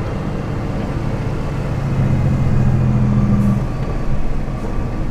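Lorry's diesel engine running as heard from inside the cab on the move, a steady hum that drops off about three and a half seconds in.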